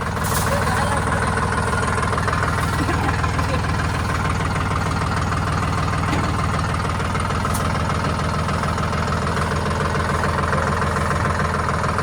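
A vehicle's engine running steadily.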